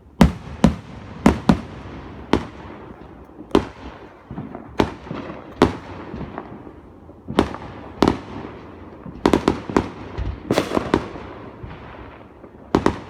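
Fireworks going off in a display: a string of sharp booming bangs, each followed by a rolling echo, some spaced a second or so apart and others in quick clusters of several in a row.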